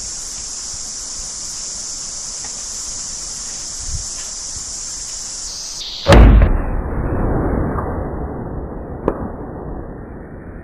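A single high-powered rifle shot about six seconds in, sharp and very loud, followed by a long rolling echo that fades over the next few seconds. Before it, a steady high hiss; a short sharp click comes about three seconds after the shot.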